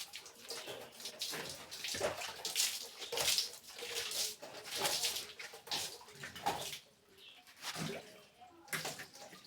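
Water splashing and sloshing in uneven surges, as surfaces are rinsed and washed down with water; quieter toward the end.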